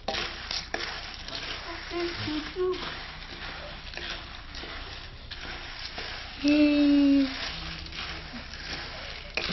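Raw peanuts being dry-roasted in hot salt in a steel karahi, stirred with a wooden spoon: a continuous gritty rustling and scraping of nuts and salt against the metal. About six and a half seconds in, a short, steady, held voice calls out over it, louder than the stirring.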